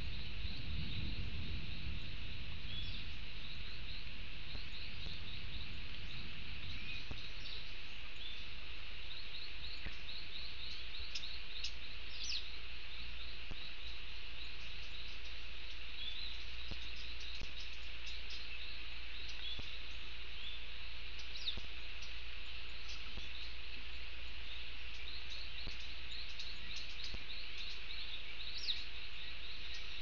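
Tropical forest ambience: a steady chorus of insects with many short, high chirps repeated in runs, and small birds calling, over the low, steady rush of a small stream.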